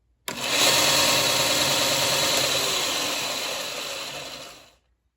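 Wen benchtop belt and disc sander switched on and running with no load: the motor and 4-inch belt start suddenly at full speed with a steady whir. After about three seconds it is switched off and winds down to a stop. This is a short test run to check the belt's tracking.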